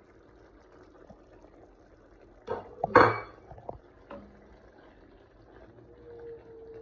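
Utensils clinking and knocking against a cooking pot a few times, the loudest about three seconds in, as spices are added to the curry's onion-tomato base. A faint steady tone starts near the end.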